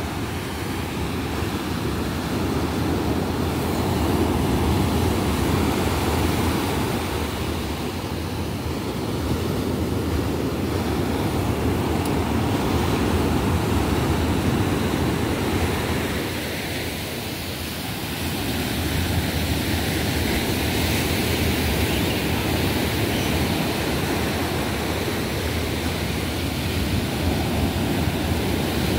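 Ocean surf breaking and washing up a sandy beach, a continuous rushing wash that swells and eases as the waves come in, dipping briefly a little past halfway.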